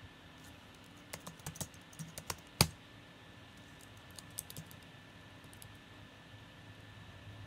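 Keys typed on a white MacBook's built-in keyboard: a quick run of keystrokes about a second in, ending in one louder key press, then a few scattered taps a little later.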